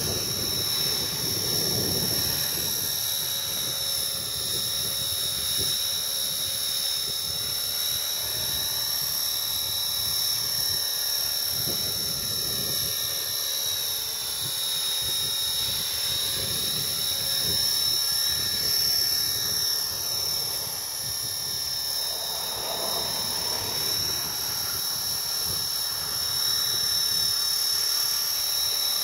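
Align T-Rex 450 electric RC helicopter flying, its brushless motor, gears and rotors giving a steady high-pitched whine.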